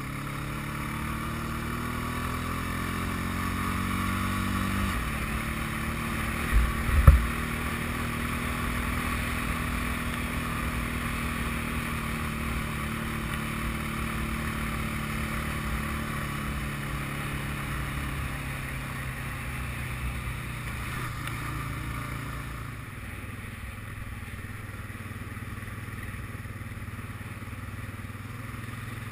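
ATV engine running as the quad drives along a sand beach: its pitch climbs for about five seconds, drops suddenly, then holds steady and slowly sinks. Two loud knocks come a little over six seconds in, and a steady rush of wind noise runs under the engine.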